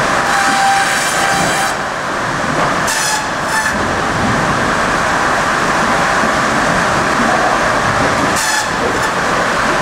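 Sawmill log-infeed machinery running: a steady mechanical din from the chain log deck, broken three times by short bursts of fast rattling as the chain conveyors move the logs along.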